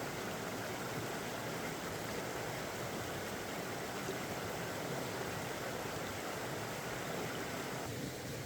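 Steady rushing of a flowing mountain stream, thinning out a little near the end.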